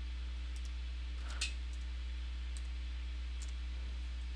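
A steady low electrical hum with a few faint, sharp computer-mouse clicks scattered through it. The clearest click comes about a second and a half in.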